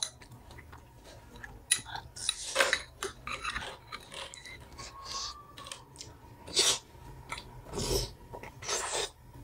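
Close-up eating sounds: chewing and mouth noises, with a metal spoon clinking and scraping in a small glass bowl of momo sauce.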